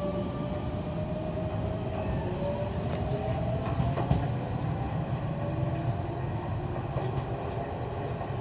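Kobe Electric Railway train running, a steady rumble with a whine that rises slowly in pitch, and a few clicks of the wheels over the rail joints, the loudest about four seconds in.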